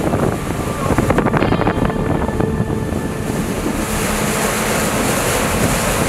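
A boat's motor running under way, with heavy wind buffeting the microphone and water rushing and splashing against the hull.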